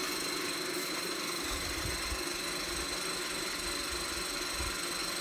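Steady low mechanical hum, like a motor running, with a thin high steady whine above it and a few low rumbles about a second and a half in and again near the end.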